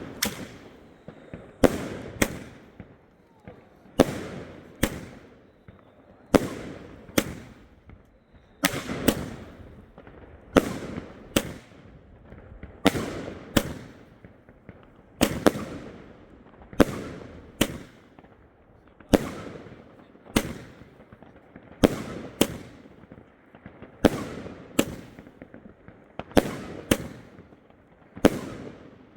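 Firework battery firing a long sequence of shots: sharp bangs, mostly in close pairs, every second or two, each with an echoing tail.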